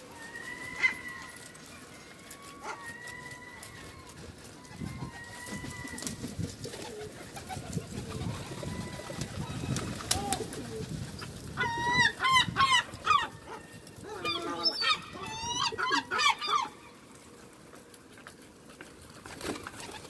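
Herring gulls calling: a few short, level calls in the first seconds, then two loud runs of rapid, wavering calls past the middle.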